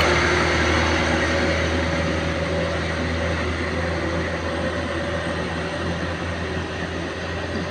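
Light truck engine and tyres pulling away around a hairpin bend, the steady engine hum fading gradually as the truck moves off.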